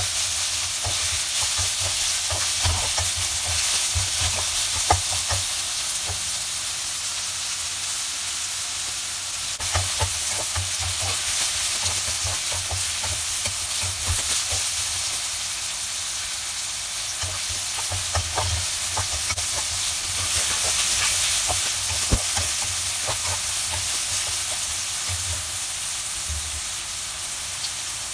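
Strips of prickly pear cactus pad (nopales) sizzling in oil over high heat, stirred with a utensil that clicks and scrapes against the pan now and then. The high heat is drying off the leftover mucilage from the pads.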